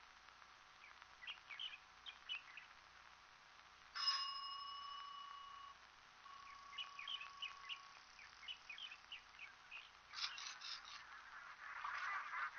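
Small birds chirping in short scattered bursts. About four seconds in, a single ring of a small metal bell sounds suddenly and rings on for nearly two seconds, with a fainter tone just after. Geese start honking near the end.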